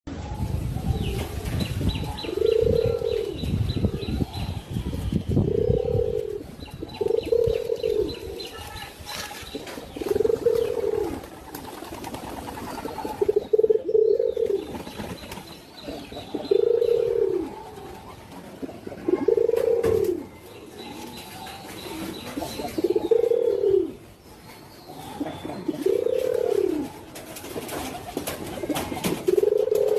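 Pigeon cooing: a low coo that rises and falls, repeated about ten times at intervals of two to three seconds.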